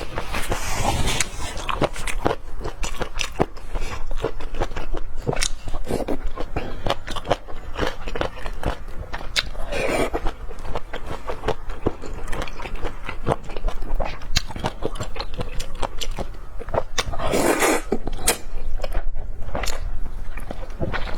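Close-miked eating of lamb: steady biting and chewing with many quick, wet mouth clicks. Two brief louder sounds come around the middle and about three-quarters of the way through.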